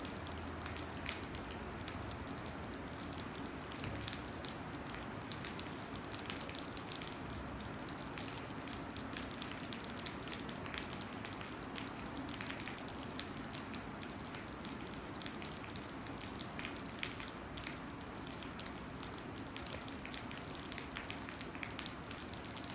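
Steady rain: a continuous hiss with many separate drops ticking on a surface.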